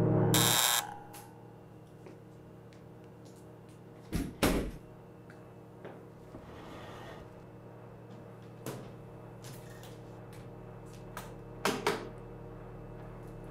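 A loud gong-like musical hit breaks off within the first second, leaving a quiet room with a steady low hum. Scattered handling knocks and clicks follow: a double knock about four seconds in, and near the end two sharp clicks as a hard-shell briefcase's latches snap open.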